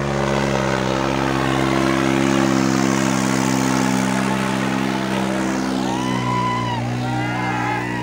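New Holland 3630 tractor's diesel engine running hard and steady under heavy load as it drags a disc harrow through loose soil. About halfway through, rising-and-falling calls from the onlookers come in over it.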